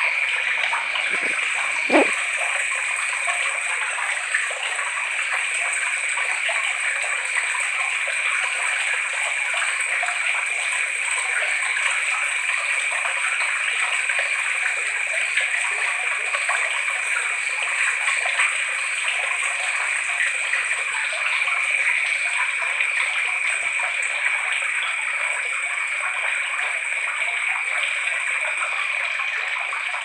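Water trickling and gurgling steadily, with a brief click about two seconds in.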